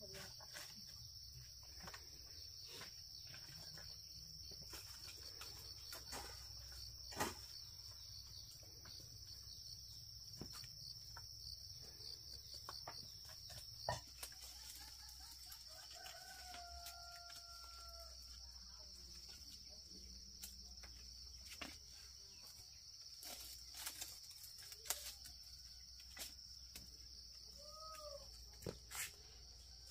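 Faint outdoor ambience: a steady high insect drone, with a rooster crowing once faintly about halfway through and a short hen-like call near the end. Scattered faint sharp clicks through it.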